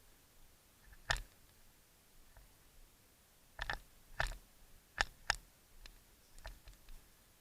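A handful of short, sharp clicks and snaps at irregular intervals, some coming in quick pairs, over a quiet background.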